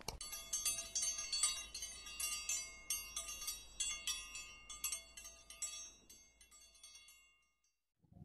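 A click, then a tinkling wind-chime sound effect: many quick, high metallic chime strikes that thin out and fade away about seven and a half seconds in.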